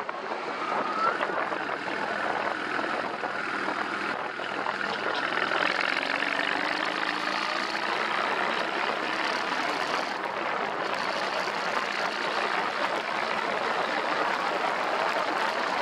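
Cruiser motorcycle engine running under way, mixed with a steady rush of wind and road noise. The engine note climbs a little about five seconds in.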